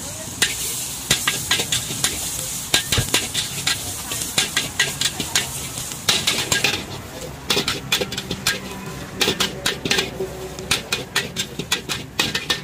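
Metal spatula scraping and clanking against a wok as vegetables and meat are stir-fried, with the food sizzling in the hot oil. The strokes come quick and irregular, and the sizzle thins about halfway through while the scraping grows busier.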